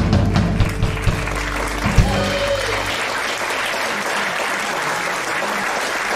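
A live country band of electric guitar, bass and drums ends a song with a run of drum hits and a final loud hit about two seconds in. The sound rings out and stops about a second later. The audience applauds throughout, and the applause carries on alone after the band stops.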